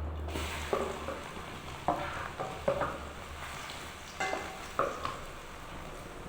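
Food sizzling as it fries in a pan, with a utensil stirring it and scraping and knocking against the pan in a handful of irregular strokes, a couple of them ringing briefly like metal.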